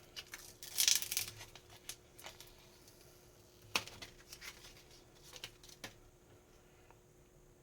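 Light clicks, taps and rustling from handling a smartphone and its parts, with a brighter rustle about a second in and a sharp click a little before halfway.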